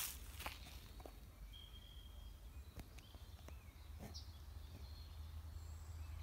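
Scattered short bird whistles and chirps over a steady low rumble of wind on the microphone, with a brief scuff at the very start and a few faint clicks.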